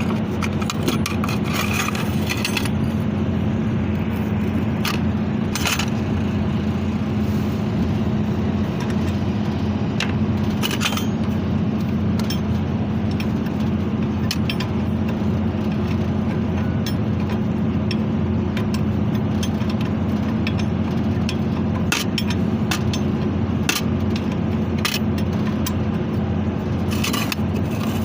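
Steady low machinery hum with scattered metallic clinks and scrapes of hand tools on metal, a few at a time.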